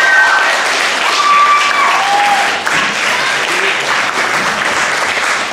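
Audience applauding, with a few voices calling out above the clapping.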